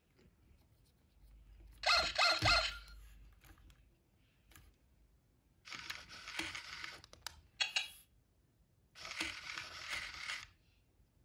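Hasbro I-Dog Amp'd robotic toy dog playing electronic sound effects through its small speaker, set off by taps on its head. There are four short bursts: a quick run of a few pitched notes about two seconds in, then more about six seconds in, just before eight seconds, and from about nine to ten and a half seconds.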